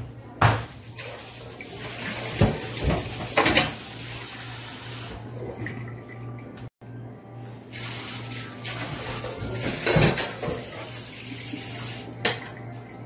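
Tap water running into a kitchen sink, stopping briefly around the middle. A few sharp knocks come from a cleaver chopping boiled chicken on a wooden cutting board, the loudest about half a second in and near ten seconds in. A steady low hum runs underneath.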